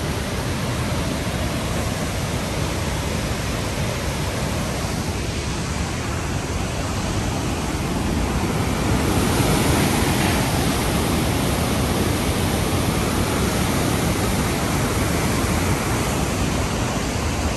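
Steady rush of a waterfall cascading over boulders, swelling a little about halfway through.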